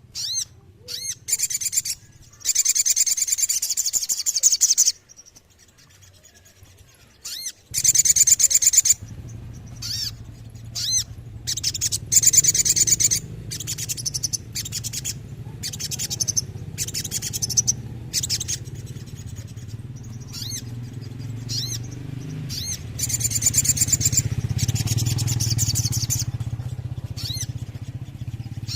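Sogon sunbird singing: short high chirps broken by bursts of rapid, fast-rattling trills, sung in repeated phrases. A steady low hum joins about a third of the way in.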